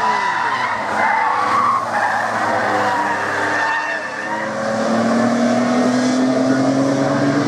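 Two cars' engines accelerating through a corner and pulling away, several engine notes changing in pitch, with a wavering tyre squeal in the first two seconds. From about halfway, another engine note rises slowly as the next car approaches.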